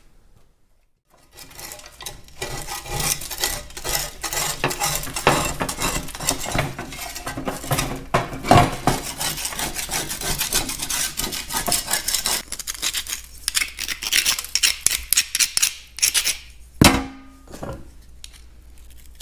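Caked grease and dirt being scraped off a perforated steel tractor foot plate with a metal blade: rapid, dense metal-on-metal scraping strokes, thinning out in the second half as a small steel bracket is scraped. Near the end a single metal clank rings briefly.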